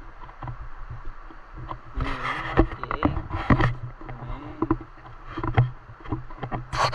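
River water sloshing and splashing as a person wades through it, coming in uneven bursts that are loudest about two to four seconds in and again near the end.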